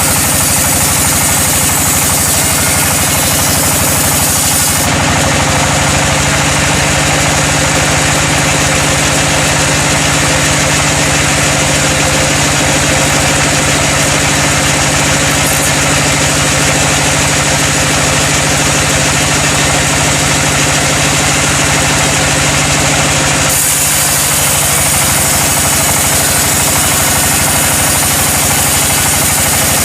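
Sawmill's engine running steadily with a rapid even beat, its tone changing abruptly about five seconds in and again near twenty-four seconds.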